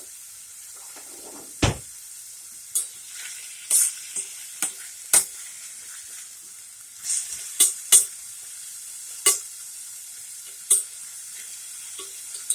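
Chopped onions sizzling in oil in a frying pan, with a utensil scraping and tapping against the pan at irregular moments as they are stirred. A single knock about one and a half seconds in is the loudest sound.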